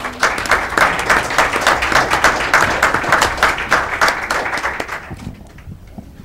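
Audience applauding in a meeting room, a dense patter of clapping that thins out and dies away about five seconds in.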